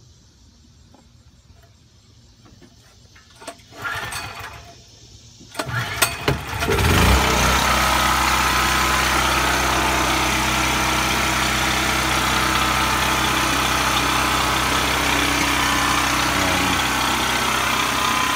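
DuroMax XP4850EH dual-fuel portable generator engine, running on propane, being pull-started on its recoil starter. Two bursts of pulling, then it catches about seven seconds in and settles into a steady, loud run.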